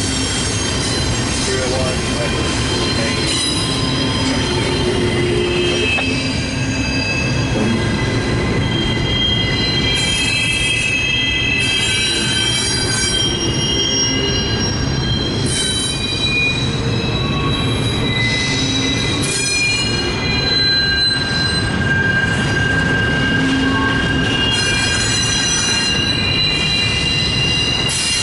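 CSX intermodal freight train of double-stack container cars rolling past with a steady rumble, its wheels squealing in high, drawn-out tones that come and go as the cars take the curve off the wye.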